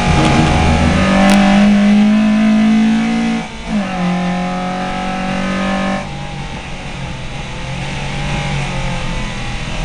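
VW Lupo race car's engine heard from inside the cabin, running hard at high revs. The pitch drops sharply for a gear change about three and a half seconds in, then climbs slowly again. The engine gets quieter about six seconds in.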